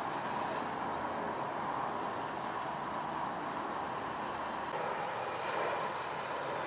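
Steady jet-engine noise of a Boeing 777 airliner flying overhead on its landing approach. About two-thirds of the way through the sound changes abruptly to the engine noise of a Jet2 Boeing 757, also passing overhead on approach.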